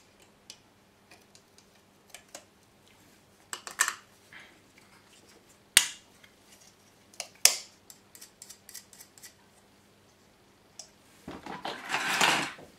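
Small hard clicks and taps of a 4-channel relay board and its plastic project box being handled and fitted together. Two sharp knocks come about halfway through, a second and a half apart. A longer rattling, rustling stretch comes near the end.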